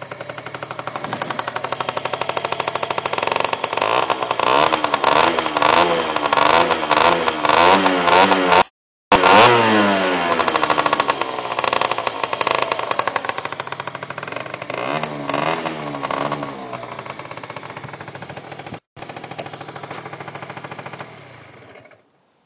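Aprilia SR 50's two-stroke single-cylinder engine running through a Giannelli aftermarket exhaust, revved up and down again and again with quick blips of the throttle. Near the end the engine is switched off with the key and falls silent.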